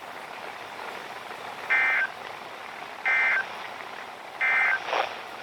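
NOAA Weather Radio SAME end-of-message data: three short bursts of warbling two-tone digital data, about a second and a half apart, over steady radio receiver hiss. The bursts mark the end of the warning broadcast.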